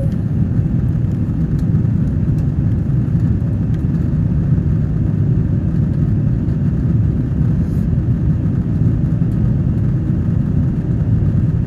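Steady low rumble of an airliner's jet engines and airflow heard inside the passenger cabin, even in level throughout.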